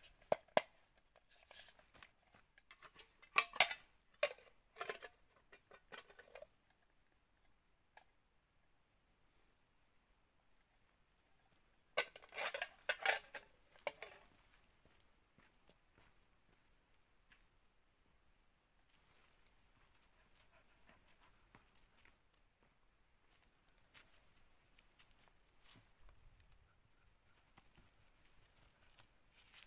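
An insect chirping in a steady run of high, evenly spaced pulses. Over it, bursts of rustling and crackling from leaves and twigs of the star anise tree being handled come in the first six seconds and again about twelve seconds in.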